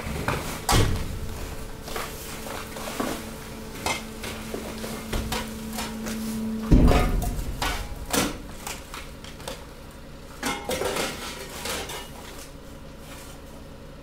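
Mixed waste shifting and dropping in a hydraulic press hopper, with scattered knocks and clatter of hard items such as bottles and cans. One heavy thud comes about seven seconds in, and a steady hum stops at the same moment.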